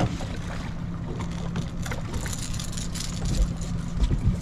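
Boat motor running steadily with a constant low hum, with a few short knocks in the last second and a half.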